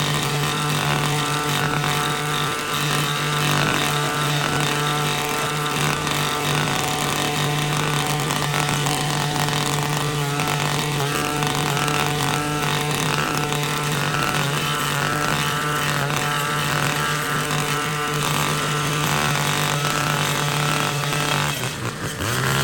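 Vevor 1E44F two-stroke brush cutter engine running at high throttle with a steady, loud engine note. Near the end it eases off briefly, then comes back up.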